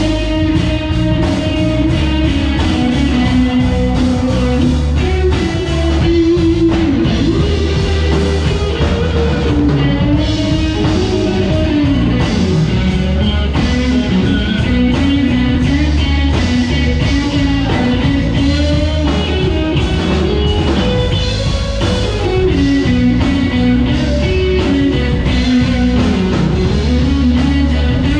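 Live rock band playing: electric guitar, bass guitar and drum kit, with a sustained melodic line gliding over a steady beat.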